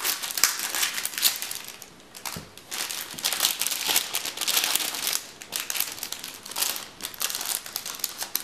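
Scissors snipping open a clear plastic packaging bag, then the crinkly plastic rustling and crackling as the bag is handled and its contents are pulled out.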